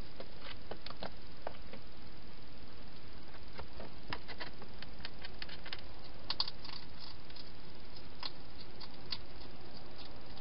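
Wild hedgehog moving about and feeding inside a clear plastic feeding station: scattered small clicks and taps, with a brief cluster about six seconds in, over a steady hiss.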